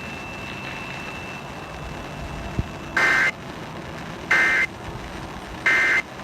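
Emergency Alert System end-of-message data bursts: three short, shrill digital tone bursts about 1.3 s apart, the first about three seconds in, marking the end of the alert relay. They sit over a steady hiss.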